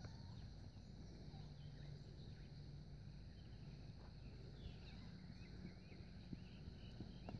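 Faint birdsong of many short chirps, with a few soft, scattered hoofbeats from a horse cantering on arena sand some way off.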